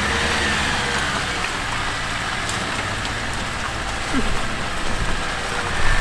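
A vehicle's engine running steadily at low revs under a steady hiss.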